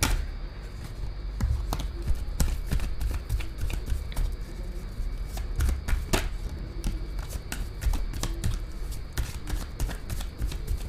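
A deck of tarot cards being shuffled by hand: an irregular run of short card clicks and slaps.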